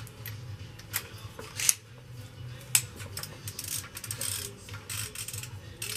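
Hand ratchet and socket on the engine's bolts: a few sharp metal clinks, then about two seconds of rapid ratchet clicking.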